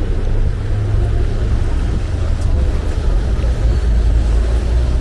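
Outdoor street ambience dominated by a steady, loud low rumble.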